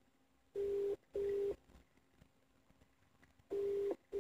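Telephone ringback tone: the called line ringing in the double-ring pattern, a steady tone in two short bursts, then a pause, heard twice.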